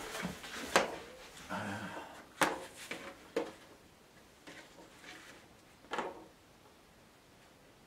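Cardboard picture mount being handled and laid over a watercolour painting: several sharp taps and knocks with soft rustling of card and paper between them, settling down after about six seconds.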